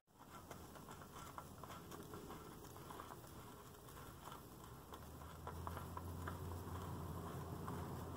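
Faint light ticking and scuffing of fingers turning a Purolator oil filter canister as it is threaded onto the engine by hand. A low hum comes in about halfway through.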